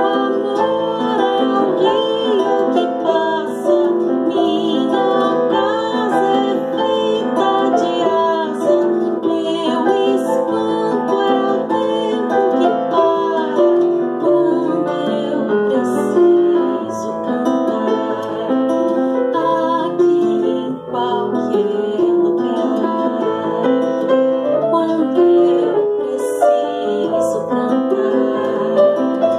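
A woman singing with grand piano and acoustic guitar accompaniment.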